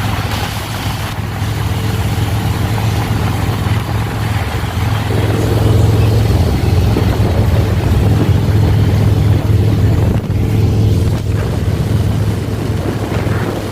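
Motorcycle engines running as a group of bikes rides in formation: a steady low engine drone that grows louder for a few seconds in the middle.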